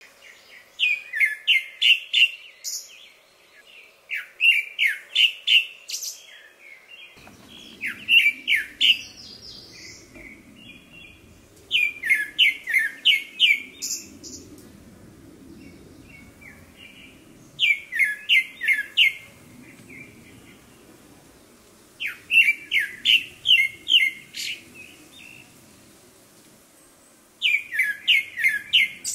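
Grey-backed thrush singing: seven phrases a few seconds apart, each a quick run of clear whistled notes that slur downward.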